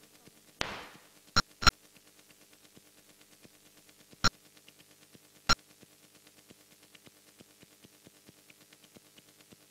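Sparse electronic sound design: a short noise swoosh, then sharp pitched clicks, two in quick succession and later two more spaced about a second apart. Under them run a faint rapid ticking and a faint steady drone.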